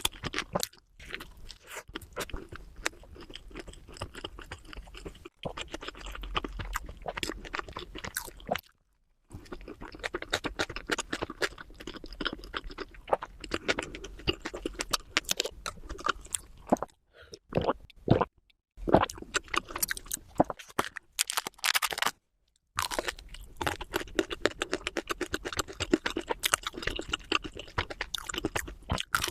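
Close-miked chewing and crunching of food in a dense run of crackly bites, sped up to double speed, broken by a few brief drops to silence.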